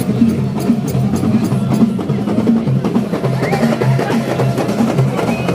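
Percussion music, drums with a busy clicking beat.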